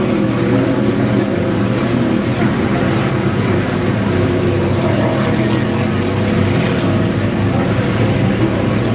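Inboard racing hydroplanes of the 5-litre class running at racing speed, a loud, steady engine drone with spray hiss over it.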